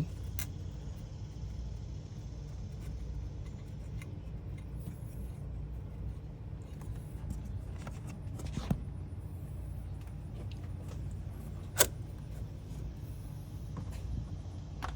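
Faint metallic clinks of hand tools and bolts being handled during water pump work, with two sharper clicks, one past the middle and a louder one near the end, over a steady low hum.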